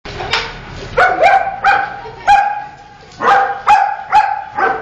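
A dog barking repeatedly, about nine short sharp barks in quick, uneven succession.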